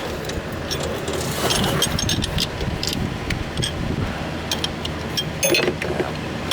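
Metal hand tools turning a threaded A/C clutch installer tool: a run of irregular sharp metallic clicks and scrapes, with a louder clatter about five and a half seconds in. The tool will not tighten, which the mechanic takes as a sign that something is off with it.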